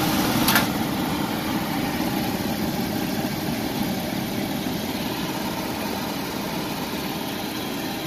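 Gas furnace motor running with a steady hum and rush of air, with one sharp click about half a second in.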